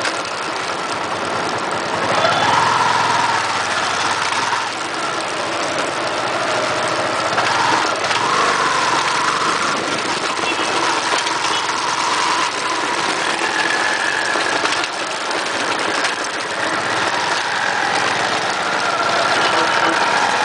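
Yamaha FZ16's single-cylinder four-stroke engine running while riding, its pitch rising and falling several times with the throttle, over a steady rush of wind and road noise.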